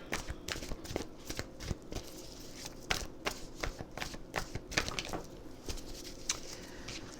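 Tarot cards being shuffled and handled: a run of many short, irregular card clicks and flicks.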